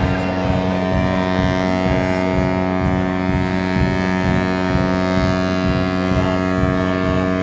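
Ship's horn sounding one long, steady blast for a ship launch, with wind buffeting the microphone.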